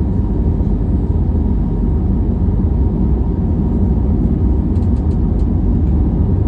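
Steady low rumble of jet engines and airflow heard from inside an Airbus A321neo passenger cabin, with a few faint ticks about five seconds in.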